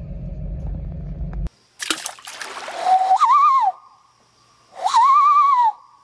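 Low steady rumble inside a car cabin, cut off suddenly about a second and a half in. After a brief gap come a burst of rushing, splashy noise and two pitched whistling calls that rise and then fall, each under a second long.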